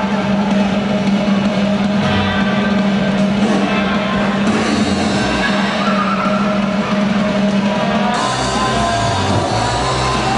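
Loud music with drums. A held low note carries it until about eight seconds in, when it changes to a new section with a pulsing bass.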